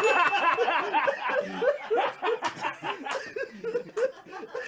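Several people laughing hard together, overlapping chuckles and snickers that die down toward the end.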